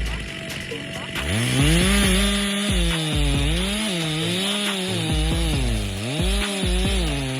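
Chainsaw engine revving up about a second in, then its pitch rising and dipping over and over as it cuts into wood.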